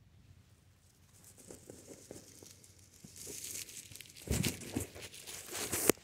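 Dry fallen leaves crunching and crinkling close to the microphone, building up from about three seconds in, with a couple of sharp knocks near the end.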